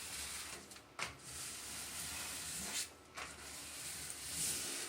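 Application tape being peeled slowly off a vinyl wall decal: a continuous crackling rip in three long pulls, with short breaks about a second in and near three seconds.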